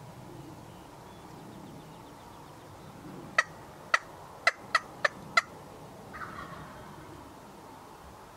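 Wild turkey calling: six short, sharp clucks over about two seconds, then a fainter, drawn-out call that falls in pitch a second later.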